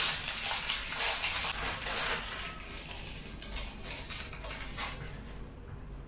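Thin plastic wrapper of a processed cheese slice crinkling and crackling as it is opened and peeled off the slice, dying down about five seconds in.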